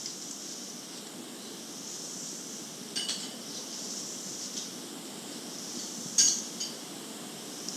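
A spoon clinking against a dish a few times, once about three seconds in and twice more, loudest, about six seconds in, as a baby is spoon-fed cereal. Heard over steady hiss and hum from an old cassette tape played back through earbuds into a phone.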